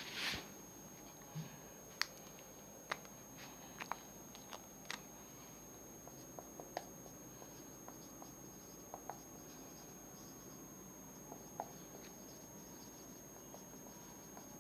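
Faint, scattered clicks and short scratches of a marker on a whiteboard, over quiet room tone.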